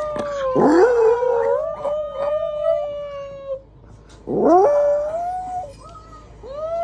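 Small dog howling on cue when told to sing: three long howls, each sweeping up in pitch and then held with a waver. The last one starts near the end.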